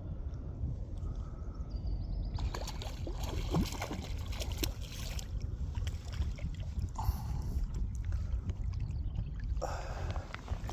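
Wind rumbling on the microphone, with scattered small splashes and handling clicks while a hooked fish is played in towards the landing net.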